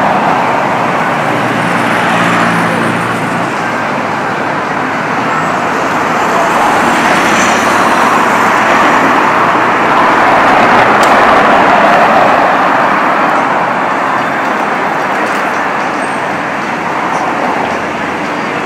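Road traffic: passing vehicles make a continuous wash of engine and tyre noise that swells to its loudest about ten seconds in and then eases off.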